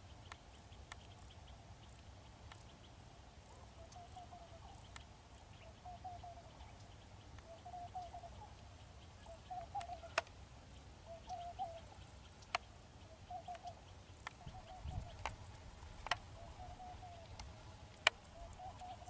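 A bird calling over and over, a short warbling call repeated about every second and a half, with a few sharp clicks standing out above it.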